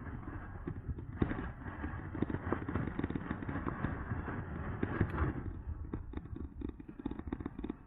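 Wind noise and road rumble from riding an e-bike, with many short rattling knocks from bumps in the ground. The hiss fades about five and a half seconds in, leaving the low rumble and the rattles.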